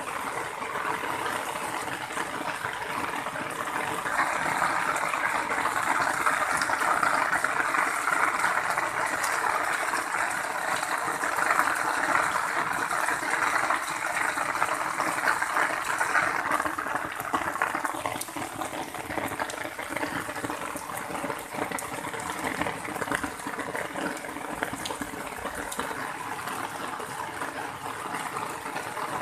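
Heavy rain falling steadily. From about four seconds to about eighteen seconds in it is louder: rainwater gushing from a downpipe and splashing onto concrete.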